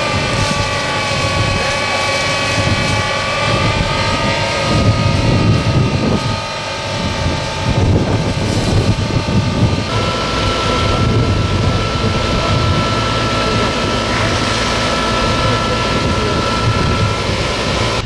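A fire-fighting water tanker truck's engine and water pump running steadily with a high whine while its roof cannon sprays water. The whine changes pitch about ten seconds in.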